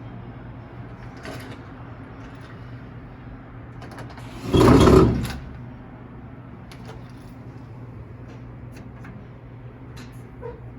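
Washing machine running with a steady low hum. About four and a half seconds in there is one loud, short thud, and a few light clicks follow later.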